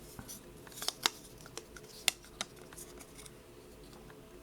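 Light, sharp clicks and taps of a small folding knife being handled, with a couple of louder clicks about a second in and another about two seconds in.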